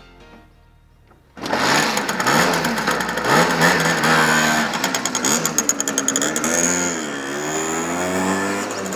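A Simson Schwalbe scooter's two-stroke engine starts abruptly about a second and a half in, then revs up and down as the scooter pulls away. Music plays along with it.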